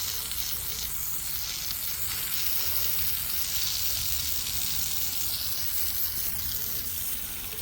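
A jet of water spraying steadily onto a sawn log, hissing as it washes ice off the wood, with a low steady hum underneath.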